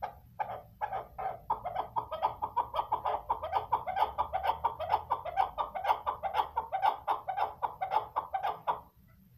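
Female chukar partridge calling: a string of short clucking notes, spaced at first, that speeds up into a fast run of about five a second and stops abruptly near the end.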